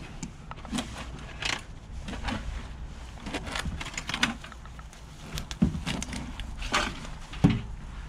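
Steel halibut longline hooks clinking and knocking as they are pulled from a hook tub and baited by gloved hands with chunks of fish: scattered, irregular clicks over a steady low rumble.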